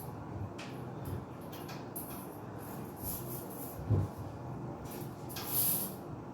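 Handling noises from fitting a shower head: small knocks and rubbing of the fittings, with one sharper knock about four seconds in and a short hiss-like rub near the end.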